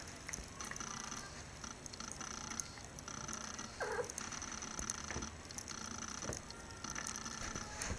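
A domestic cat gives one short meow about four seconds in, over a steady background hiss.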